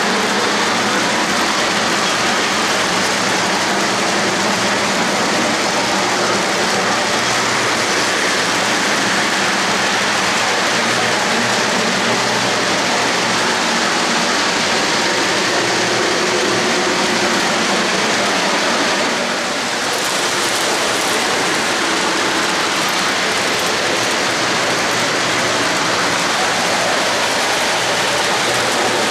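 O-gauge model freight cars rolling past on three-rail track: a steady, dense noise of metal wheels running on the rails, with a faint low hum underneath.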